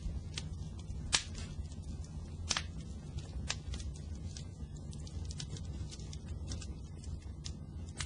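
Fire crackling, with sharp pops, the loudest about a second in, over a steady low rumble of the flames.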